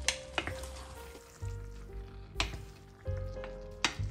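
Wooden spoons tossing spaghetti through a sizzling sauce in a stainless steel frying pan, with a few sharp knocks of spoon on pan, over background music.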